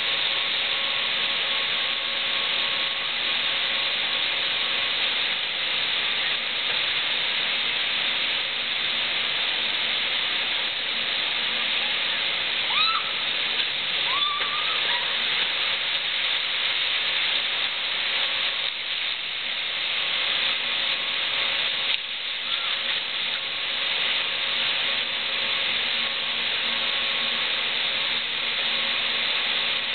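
Steady rushing hiss of water flowing through a log flume ride's channel, with a faint constant hum under it. A couple of short high-pitched calls rise briefly near the middle.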